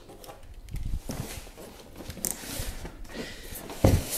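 Styrofoam packing blocks being handled and shifted, with soft scraping and rubbing and a few light knocks, then a heavy thump near the end as the stack is set down.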